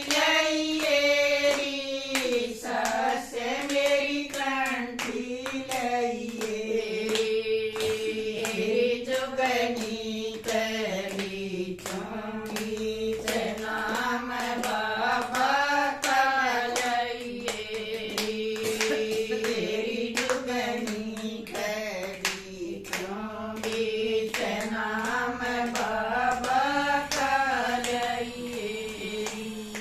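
A small group of women singing a Haryanvi devotional bhajan together, clapping their hands in a steady rhythm to keep time.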